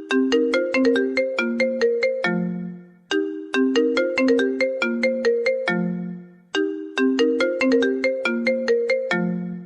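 iPhone ringtone playing on a loop: a short melody of quick, bright notes that ends on a lower note which fades out, repeating about every three seconds.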